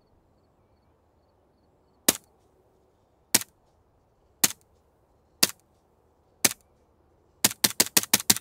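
Suppressed 9mm STI 2011 pistol with a CGS Group Kraken 9 suppressor, firing 158-grain subsonic rounds. Five single shots come about a second apart, then a rapid string of about five shots a second begins near the end.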